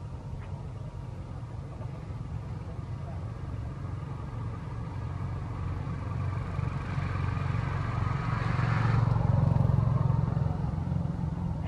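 Steady low rumble of a motor vehicle, building to a peak about nine seconds in as it passes close, then easing off.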